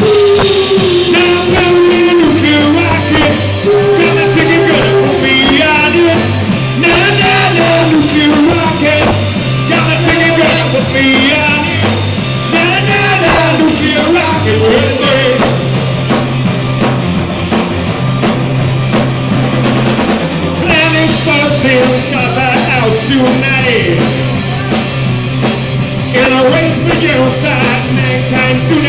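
Live rock band playing loud: electric guitars, bass and drum kit, with a singer's voice over them.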